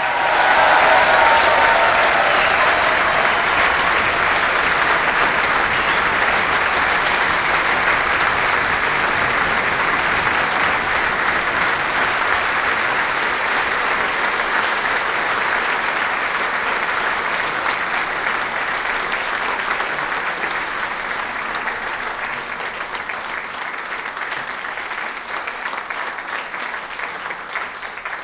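A live audience applauding, dense and sustained. It starts abruptly and tapers off slowly near the end.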